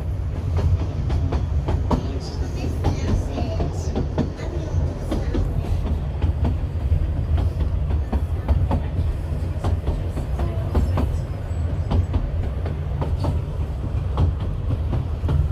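A vehicle travelling: a steady low rumble with frequent irregular knocks and rattles over it.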